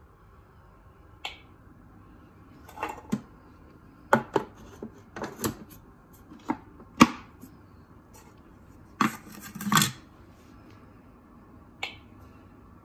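Scattered clicks and knocks of a Thermomix TM5 mixing-bowl lid being set on and locked onto the stainless-steel bowl, hard plastic against metal, with a sharp clack about seven seconds in and a short rattling cluster around nine to ten seconds.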